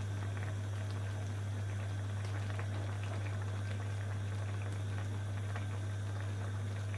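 Beef mince stew simmering in a pot: soft bubbling and small pops, over a steady low hum.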